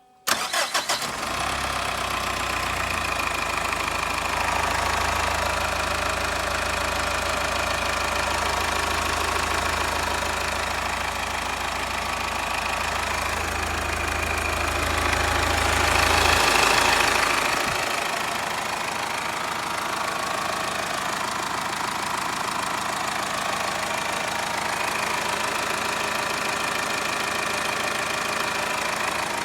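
Subaru EE20 boxer diesel engine cranked by the starter and catching within about a second, then idling steadily, with a brief rise in revs about halfway through before it settles back. The engine has just been rebuilt with new crankshaft main bearing saddles machined from D16T aluminium alloy.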